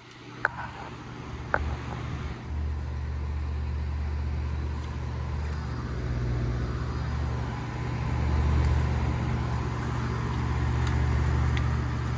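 A 2012 Armstrong Air central air conditioner's outdoor condensing unit running: the compressor's steady low hum under the whoosh of the condenser fan. It grows louder over the first couple of seconds and then holds steady, with two small clicks near the start.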